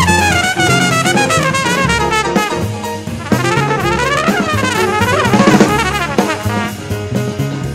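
Background music: a brisk instrumental tune led by brass over a drum kit, with quick melodic runs.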